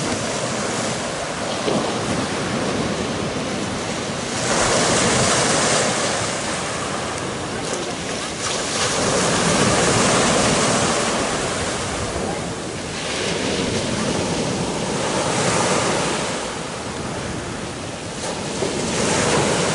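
Sea surf breaking on the beach, rising and falling in swells every few seconds as each wave comes in, with wind buffeting the microphone.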